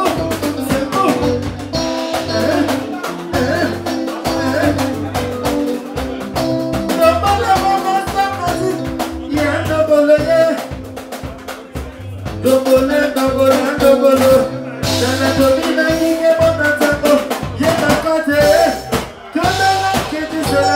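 Live soukous music: a band with drums, a steady bass beat and melodic lines, with singing over it. The sound thins briefly about halfway through, then the full band comes back in.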